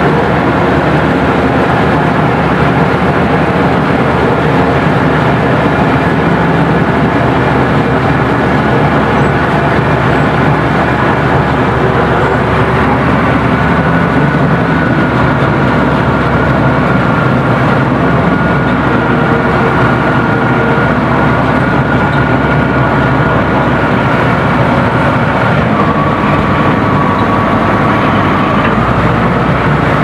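Komatsu bulldozer's diesel engine running steadily under working load, heard close from the operator's seat. A thin high whine comes in about halfway, drops lower a few seconds before the end and climbs again right at the end.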